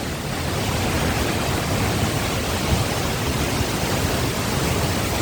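Tall, powerful waterfall plunging into its pool: a steady, loud rush of falling water, with some low rumble, possibly mixed with wind on the microphone.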